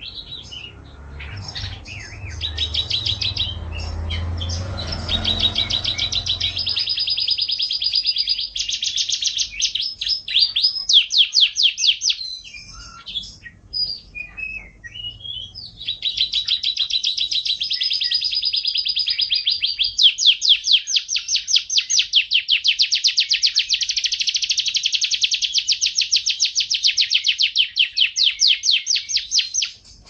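Domestic canary singing long phrases of fast trills and rolls. It breaks off for a few seconds with only scattered chirps about twelve seconds in, then sings an unbroken run of trills to the end.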